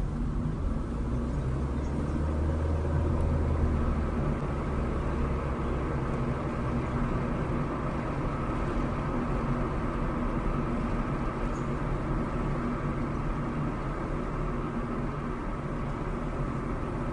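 A car driving along a street, heard from inside the cabin: steady engine hum and tyre and road noise, with a heavier low hum for the first few seconds.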